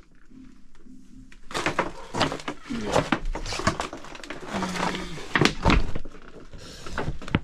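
Irregular knocks, scrapes and rustling of someone shuffling about and handling things in a cramped crawl space, beginning about a second and a half in.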